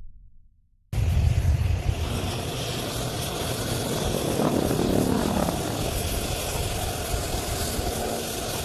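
HAL Dhruv helicopters flying a display in formation, a steady rotor and engine noise that cuts in abruptly about a second in.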